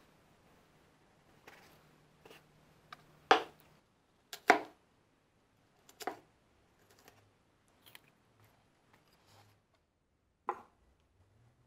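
Fireman's axe chopping sausage and apple on a wooden cutting board: a series of sharp chops as the blade cuts through and strikes the board, the two loudest about three and four and a half seconds in. Near the end comes a single knock as the axe is set down on a wooden bench.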